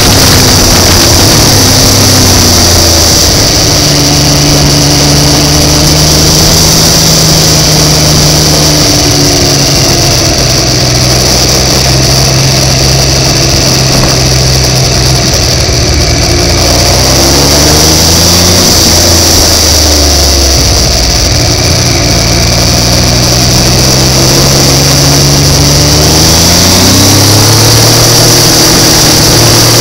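Motorcycle engine heard from on board while riding, its revs rising and falling repeatedly as it accelerates and eases off, over a steady high hiss.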